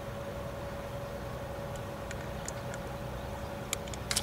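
Steady low background rumble with a faint steady hum above it, and a few light clicks near the end.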